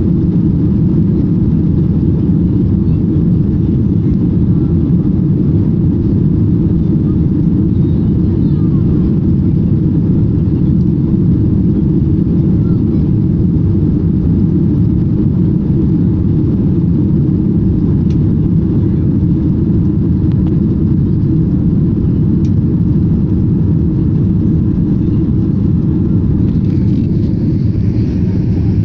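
Steady, loud low rumble of a Ryanair Boeing 737-800's jet engines and airflow, heard from inside the cabin during the climb after takeoff.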